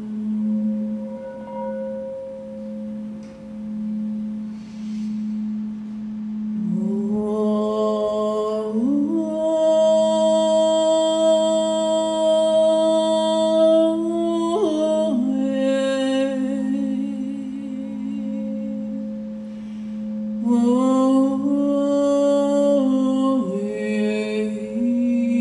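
Large frosted quartz crystal singing bowl ringing with a steady drone as a mallet is run around its rim. From about seven seconds in, a voice sings long held notes over it, stepping from one pitch to another.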